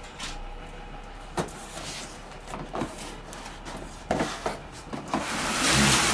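A folding wooden garden table being pulled out of its cardboard box: scattered knocks and taps of the wooden slats against the box, then near the end a longer, louder scrape and rustle of wood sliding out of the cardboard.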